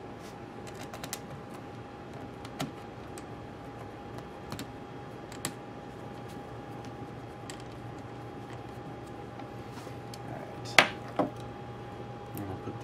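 Scattered light clicks and taps of a small screwdriver and screws against the metal case and cooling fan of an opened MacBook Pro laptop, with two sharper knocks near the end, over a faint steady hum.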